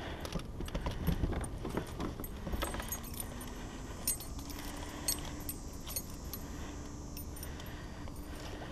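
Light metallic clinking and jingling of a double willow-blade spinnerbait and its hook being handled as it is worked free of a bass's mouth. A cluster of sharp clicks comes in the first few seconds, then single clicks about four and five seconds in.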